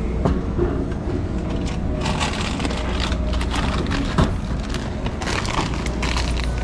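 Plastic snack packaging crinkling and crackling as it is handled, in a dense irregular run from about two seconds in, over a steady low hum.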